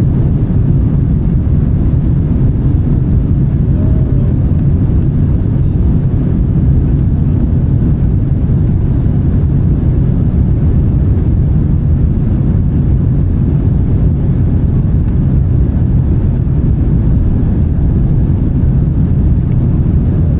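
Steady cabin noise of an Airbus A350-900 in flight: a loud, even low rumble of airflow and its Rolls-Royce Trent XWB engines, heard from inside the cabin.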